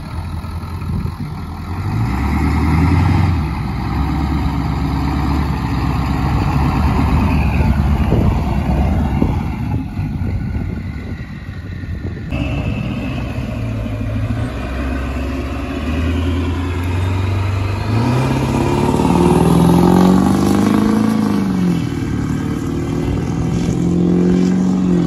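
1996 Ford F-250 pickup's engine running as the truck pulls away and drives off. Near the end it accelerates hard, its pitch climbing, dipping once, then holding high.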